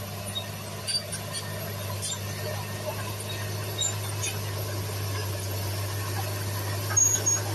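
Diesel engine of a heavy earthmoving machine running steadily with a low hum, with scattered light clicks and a brief high squeal near the end.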